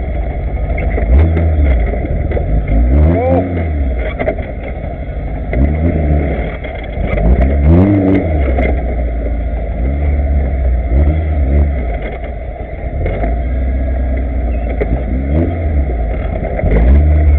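Off-road vehicle's engine revving up and down again and again, its pitch rising and falling every second or two as it is driven over rough ground.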